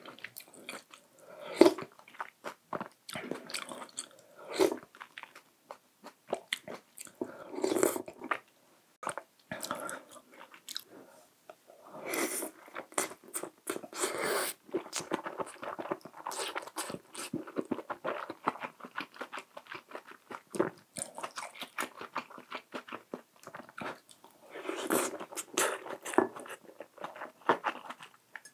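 Close-miked eating sounds of a man eating dumpling hot pot: irregular wet chewing, biting and mouth clicks, thickest about twelve seconds in and again near the end.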